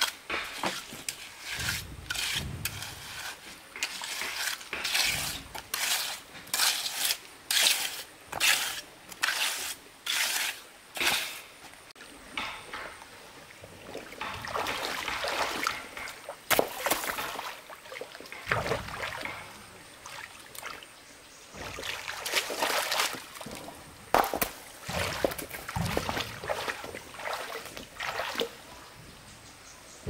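Water splashing and sloshing in repeated short strokes, about two a second at first, with a steadier wash of moving water in the middle.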